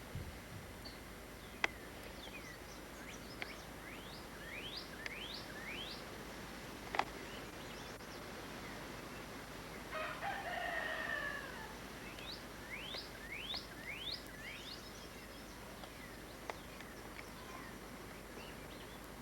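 A rooster crows once, about ten seconds in, with two runs of short rising bird chirps around it. There are a few sharp clicks.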